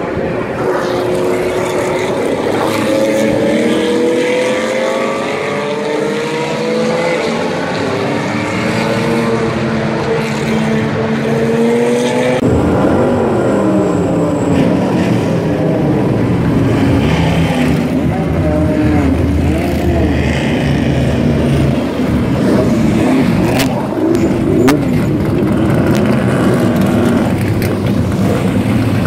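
Vintage race car engines at racing speed, their pitch gliding up and down as the cars pass. About twelve seconds in it changes abruptly to historic race car engines rumbling at low revs, wavering as the cars pull slowly out of the paddock.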